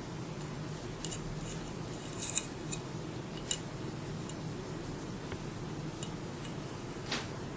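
Light metallic clicks of a stainless steel valve plate and small screws being handled on an oil-free vacuum pump, about four scattered over several seconds, over a steady low hum.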